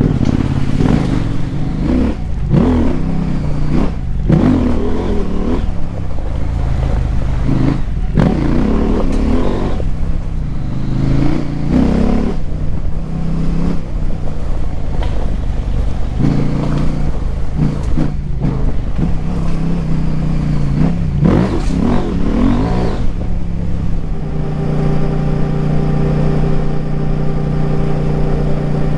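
KTM 890 Adventure R's parallel-twin engine, through a Wings slip-on exhaust with the dB killer removed, revving up and dropping off again and again as the bike accelerates and shifts, the pitch rising and falling with each pull. Over the last few seconds it settles to a steady, even note.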